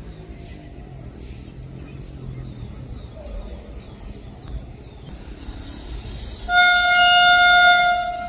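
Indian Railways locomotive horn: one loud, steady single-pitched blast about two-thirds of the way in, lasting under two seconds, over a faint low rumble.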